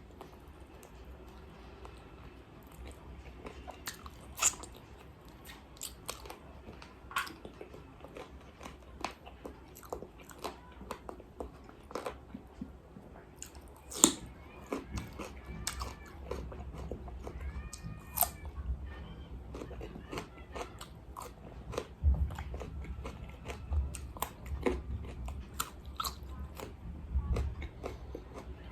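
Close-up biting, crunching and chewing of crispy KFC-style fried chicken, with sharp crackles coming irregularly; the loudest crunch is about 14 seconds in.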